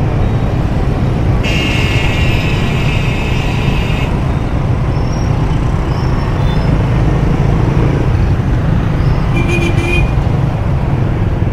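Dense city road traffic with a steady rumble of engines and tyres. A vehicle horn sounds for about two and a half seconds near the start, and a shorter horn beep comes near the end.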